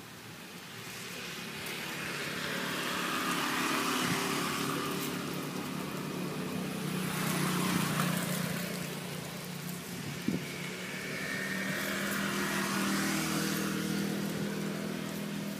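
Motor vehicle engines passing by, the sound swelling and fading twice, with a single short click about ten seconds in.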